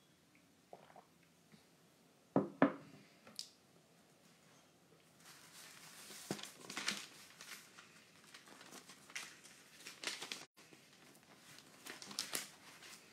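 Two sharp knocks a couple of seconds in, then a stretch of crinkling, rustling handling noise as hands work close to the microphone.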